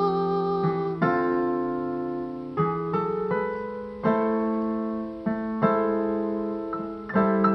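Music: piano or electric piano chords, struck about once a second and left to ring and fade, with no singing.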